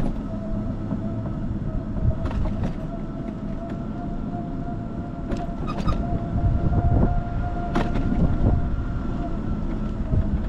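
Car driving over a rough road, heard on a camera mounted to the car: a steady low road and tyre rumble with a thin steady whine, broken by a few sharp knocks and rattles over bumps. The whine fades out near the end.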